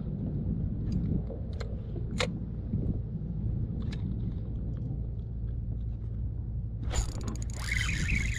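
Steady low rumble of wind on the microphone, with a few light clicks and knocks in the first half. A hiss comes in about seven seconds in.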